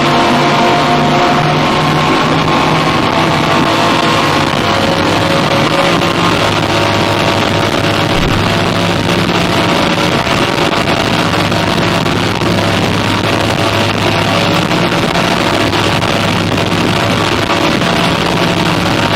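Twin Yamaha 425 hp V8 outboards running steadily at speed: an even engine drone with a constant rush of water and wind.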